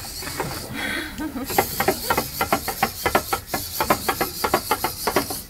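Small servo-driven robot dog walking on a glass tabletop. From about a second and a half in, its servo motors give a steady high whir and its feet tap the glass in a quick run of clicks.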